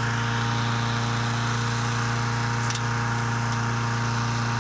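Engine-driven hot air balloon inflator fan running at a steady speed: a constant engine hum under a rush of blown air. There is a faint click about halfway through.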